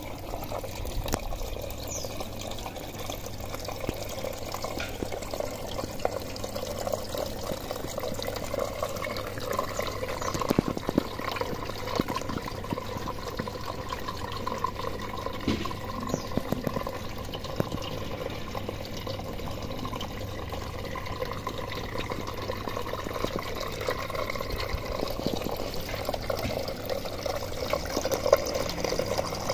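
Water trickling and splashing steadily, as in the circulating water of a hydroponic PVC pipe system, with a fine crackle of many small drops.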